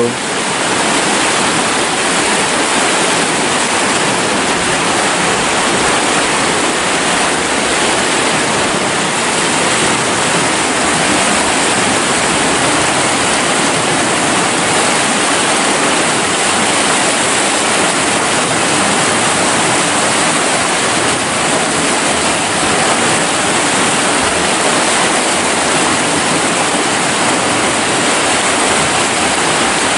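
Fast-flowing river water rushing and churning along a stone embankment: a loud, steady rush.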